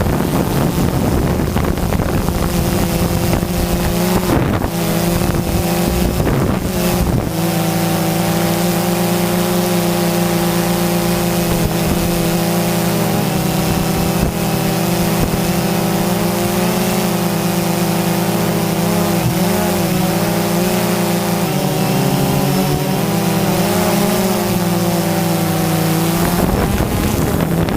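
DJI Phantom 2 quadcopter's four motors and propellers humming steadily in flight, the hum wavering slightly in pitch, with wind rushing over the microphone. The wind noise covers the hum for about the first seven seconds and again near the end.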